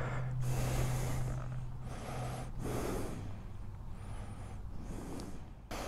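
A person breathing heavily close to the microphone, four or five separate breaths in and out, over a faint steady low hum.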